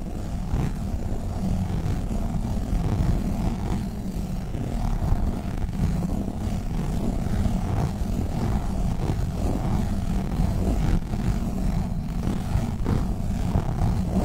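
Globbles, sticky squishy toy balls, being squeezed and rubbed against the microphone: a dense, steady low rumble with small irregular crackles over it.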